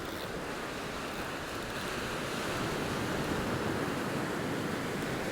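Ocean waves breaking and washing up the beach, a steady surf wash that swells slightly toward the middle, with some wind on the microphone.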